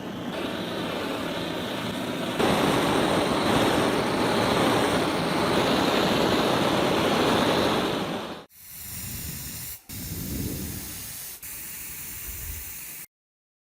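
A steady hissing rush of noise without any pitch, split by abrupt cuts into several short stretches, stopping suddenly about half a second before the end.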